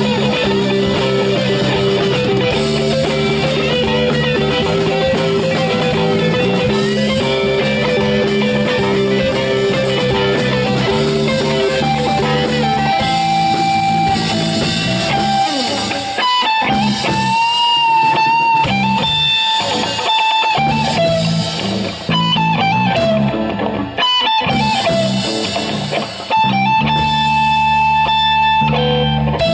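Live rock band playing an instrumental passage on electric guitar, bass guitar and drum kit. Long held high notes come in around the middle.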